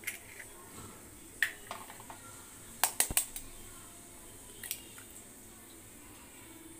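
Raw eggs being cracked into a stainless steel bowl: sharp clicks and taps of eggshell against the steel, with a quick cluster of three about three seconds in.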